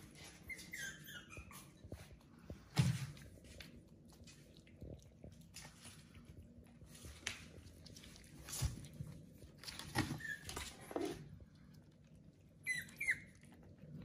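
Pomeranian puppies eating dry kibble from small plates: scattered clicks and knocks of kibble and plates, the loudest about three seconds in. Short high squeaks come in the first second or so and again near the end.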